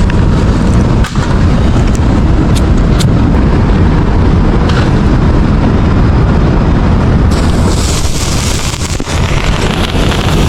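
Wind buffeting the microphone with a heavy rumble and a few sharp pops. About seven seconds in, a loud hissing fizz starts and carries on: a handheld firework spraying sparks.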